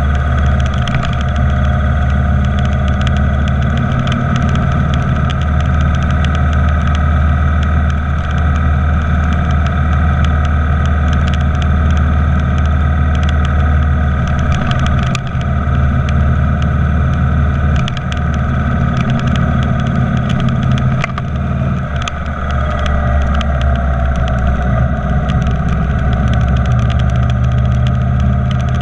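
Motorcycle engine running steadily at highway speed, its level dipping briefly a few times.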